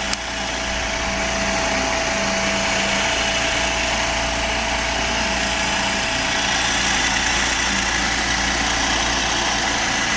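Bracker RN201 radial riveting machine's motor starting up and running steadily, building over the first second or so and then holding an even hum.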